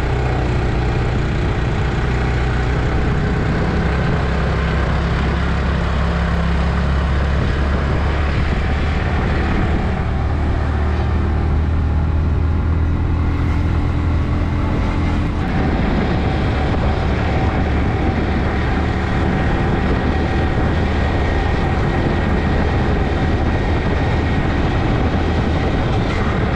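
Motorcycle engine running steadily on the move. Its note shifts about halfway through.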